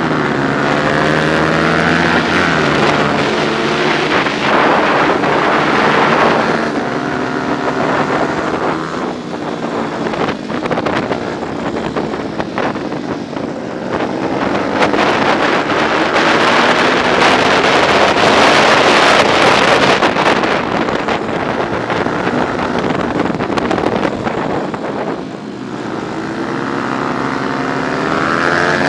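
Onboard sound of a 125 cc four-stroke racing motorcycle engine revving hard through the gears, its pitch climbing and dropping again and again with shifts and corners. Wind rushes over the microphone on the fastest stretches.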